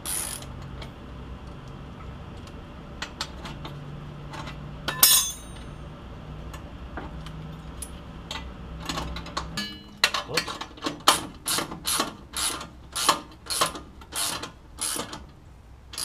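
Socket ratchet wrench clicking as it tightens 3/4-inch bolts on a car's front brake spindle. The clicks come scattered at first, then in a steady run of about two strokes a second in the second half.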